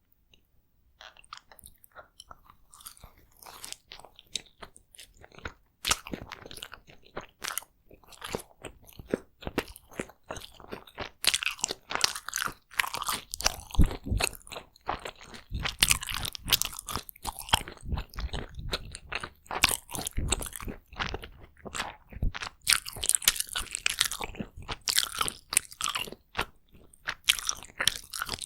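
Close-miked eating: takoyaki being bitten and chewed, a dense, irregular run of crackling mouth clicks. It starts about a second in and gets louder after about ten seconds.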